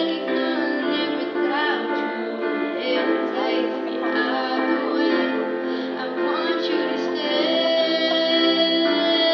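A female singer singing into a microphone over amplified backing music, a sustained melody with held notes.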